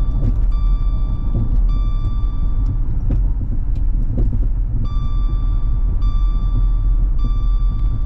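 Steady low road and engine rumble inside a moving 2012 Dodge Charger with the 3.6 L V6. Over it, the car's seatbelt reminder chime repeats in roughly one-second beeps, pauses for a couple of seconds midway, resumes, and stops just before the end as the belt is fastened.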